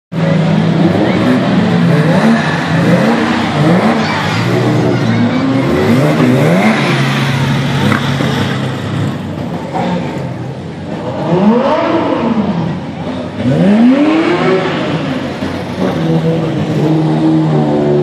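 Several supercar engines idling and being revved in short throttle blips, pitch rising and falling again, repeatedly, with the two strongest blips a little past the middle.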